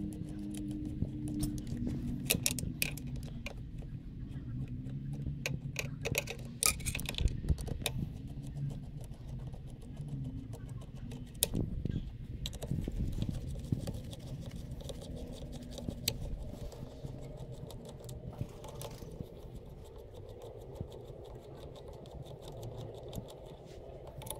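Metal tools and Yamaha YZF-R1 engine parts clinking and knocking as the engine is taken apart by hand, in scattered sharp clicks that are busiest in the first third.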